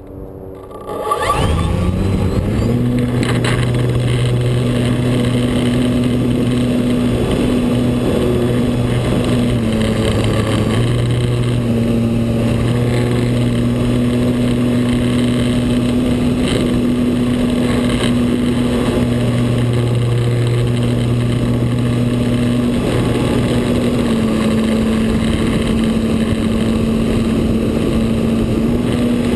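Radio-controlled DHC Beaver model plane's motor and propeller spinning up about a second in, rising in pitch for takeoff, then running steadily at high throttle in flight. Small dips and rises in pitch come around ten seconds in and again later on.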